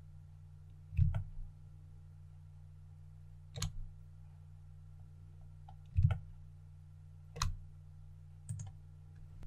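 Five separate computer input clicks, some in quick pairs, from a mouse and keyboard being worked, over a steady low electrical hum.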